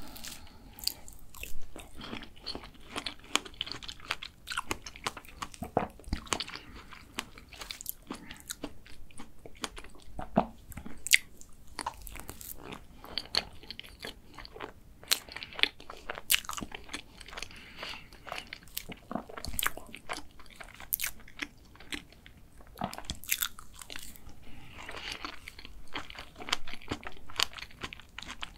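Close-miked eating of a layered chocolate cake with strawberries: wet chewing and crisp crunches, likely from its chocolate sheets, mixed with a wooden spoon scraping and clicking against a clear plastic cup. Sharp crackles and clicks come thick and fast all through, with short mouthy stretches between.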